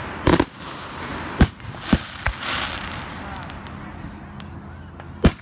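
Fireworks going off: several sharp bangs in the first two seconds, a crackling hiss in between, and a loud sharp bang near the end.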